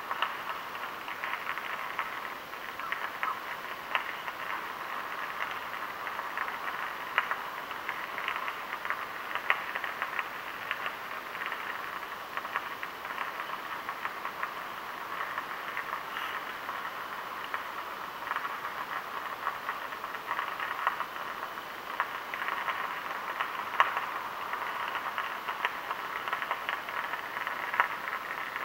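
Electrical arc on a high-voltage pylon: a steady crackling sizzle with many irregular sharp snaps, the sign of the line arcing over before the pylon fails.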